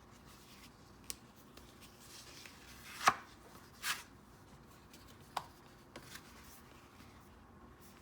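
A few sharp taps and knocks from stationery items being handled during an unboxing, the loudest about three seconds in, with a softer rustle just after it.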